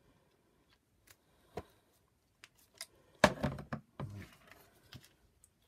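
Scattered light clicks, taps and knocks of plastic vacuum power-nozzle parts, wiring and hand tools being handled, with a louder cluster of knocks about three seconds in.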